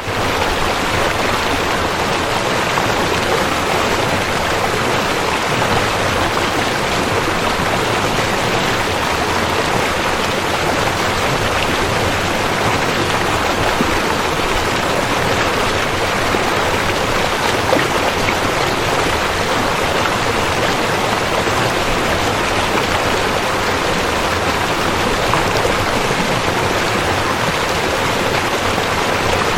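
River water flowing: a steady, even rushing of running water with no breaks.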